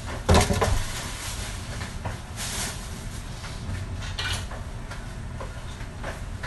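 Kitchen handling noise: a loud knock or rustle about half a second in, then a few softer knocks and shuffles over a steady low rumble.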